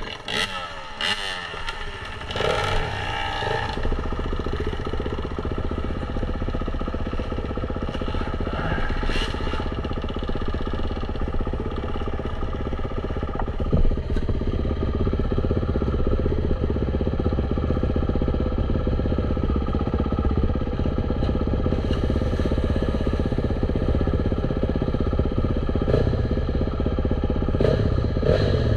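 A dirt bike's single engine running under way. Its pitch shifts over the first few seconds, then it holds a steady speed.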